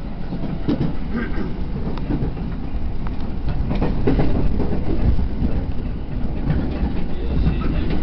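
Train running, heard from inside the carriage: a steady low rumble with the clatter and clicks of wheels over the rails, swelling louder around the middle.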